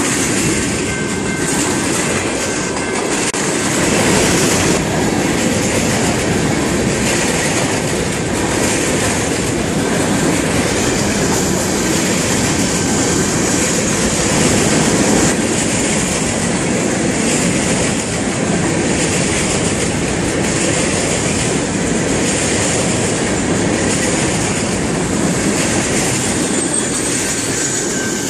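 Freight train cars (boxcars, tank cars and covered hoppers) rolling past at close range, their steel wheels running steadily on the rails, with a thin steady high tone over the wheel noise.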